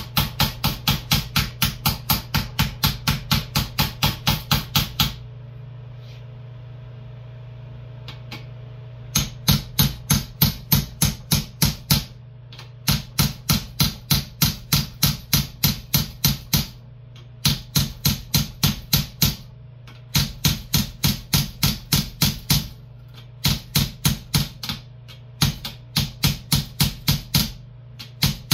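Ball-peen hammer striking steel in quick, even blows, about four a second, in runs of a few seconds with short pauses; the longest pause comes about five seconds in. This is the peening work on a steel final-drive backer plate. A steady low hum runs underneath.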